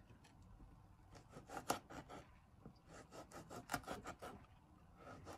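Rubbing and scraping: an irregular run of short strokes with sharp clicks, from about one second in to near the end.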